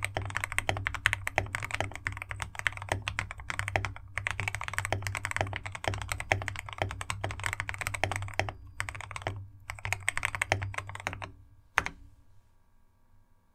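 Fast typing on a GK68x mechanical keyboard fitted with lubed, filmed C³ Banana Split linear switches and 3 mm acoustic foam dampening: a dense run of keystrokes with two brief pauses. A single louder keystroke comes near the end, then the typing stops.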